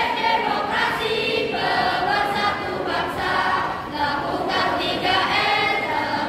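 A choir of junior high school students singing together, in long held notes.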